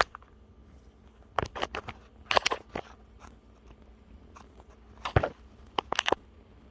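A cat nosing, pawing and mouthing at the camera right up against the microphone: clusters of short crackling clicks and scrapes, about a second and a half in, around two and a half seconds, and again around five to six seconds.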